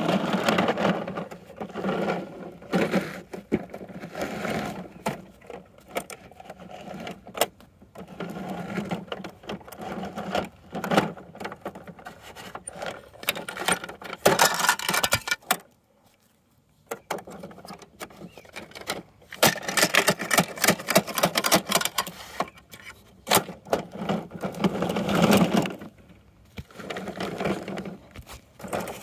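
Plastic toy garbage truck and plastic toy bins handled on dirt: rapid clicking and rattling over a low buzz, coming in bursts with a short silent pause about halfway through.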